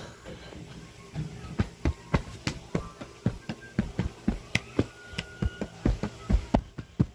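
Irregular tapping and knocking, two to four sharp knocks a second.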